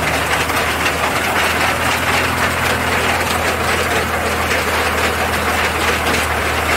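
Engine-driven sugarcane crushing mill running steadily as cane is fed through its rollers: a constant low engine hum under the grinding noise of the gears and rollers.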